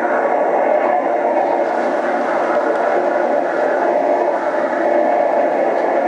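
Boxing arena crowd noise: a steady, dense din from many voices, sounding muffled and thin as on an old tape recording.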